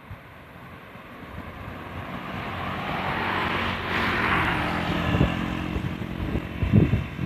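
A vehicle passing close by: its noise swells to a peak about four seconds in and then eases, over a steady low hum, with a few low thumps near the end.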